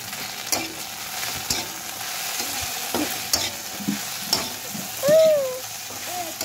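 Chopped okra sizzling in oil in a frying pan, stirred with a metal spatula that scrapes and taps the pan several times. A brief wavering high-pitched tone sounds about five seconds in.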